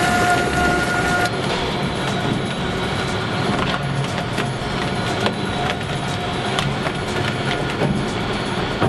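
Twin-shaft industrial shear shredder running under load, its cutter discs grinding and tearing chunks of a peanut butter feed block, with a steady churning noise and scattered sharp cracks and knocks.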